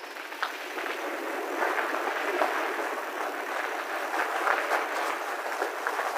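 Bicycle tyres rolling over loose gravel: a steady crunching crackle with many small pops of stones.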